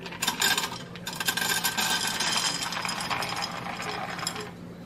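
An ear of field corn twisted by hand through a tube-type hand corn sheller, kernels rattling and clinking off the cob into the pan below for about four seconds, over a steady low hum.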